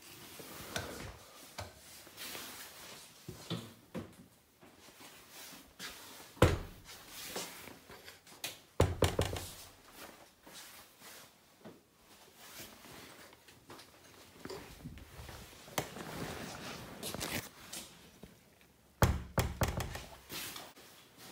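Scattered knocks and thuds from handling a cell door and the foam-padded walls of a padded cell, with rustling and footsteps between. The loudest knocks come about six and a half and nine seconds in, and a cluster of dull thuds near the end as a hand presses the padding.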